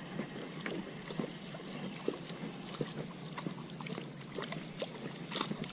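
Small spinning reel cranked steadily to bring in a hooked fish, its turning giving off irregular light clicks and ticks. A steady high insect trill runs underneath.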